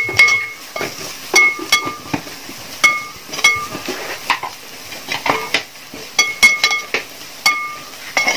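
A metal spatula scraping and knocking against a metal pot while an onion masala is stirred and sautéed, roughly two uneven strokes a second, each knock making the pot ring briefly. A light sizzle of frying runs underneath.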